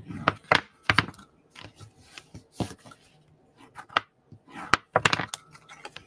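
Scored cardstock being folded and creased with a bone folder on a tabletop: irregular sharp taps and brief paper rustles, about ten in all.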